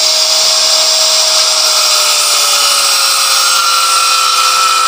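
Electric angle grinder with a thin cutting disc cutting through a 4 mm steel plate. It gives a loud, steady hiss of the disc in the metal over the motor's whine, which drops a little in pitch as the disc bears into the cut.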